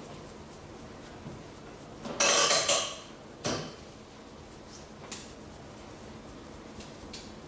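A burst of sharp noise lasting under a second, then one shorter knock about a second later and a few faint clicks, over quiet room tone.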